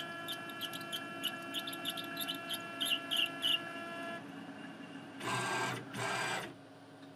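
Tormach 8L lathe running with a steady whine and hum while a drill peck-drills a pilot hole in brass bar, with irregular light ticks and clicks. About four seconds in the whine stops, and two short rushes of noise follow about a second apart.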